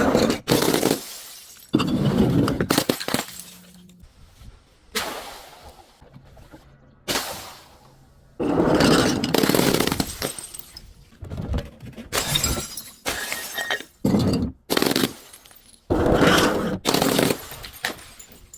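Glass bottles and other brittle objects being crushed and shattering, one after another in a rapid string of about a dozen breaks, each starting suddenly and several cut off abruptly.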